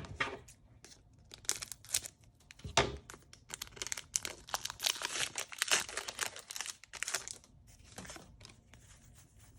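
Pokémon trading card booster pack wrapper being torn open and crinkled by hand, an irregular run of tearing and crackling with a heavier rustle about three seconds in.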